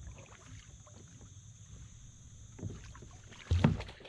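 Kayak paddle strokes dipping and splashing in a river, with soft knocks of the paddle shaft. Near the end comes a loud clunk against the kayak's hull as the paddle is set down.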